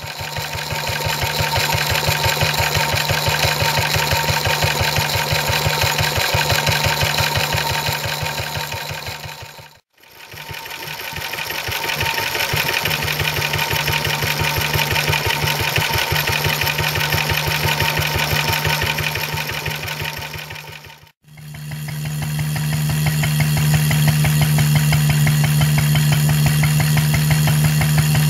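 1939 Lister D single-cylinder stationary engine running steadily on paraffin under the load of a belt-driven blower, a fast even clatter of firing strokes. The sound dips to silence twice, and after the second dip a steady low hum is louder.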